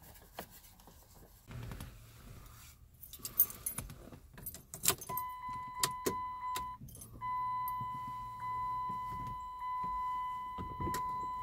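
Keys jingling with scattered clicks. About five seconds in, the van's electronic warning chime starts: a steady high beep, held with a short break or two, that stops just before the end.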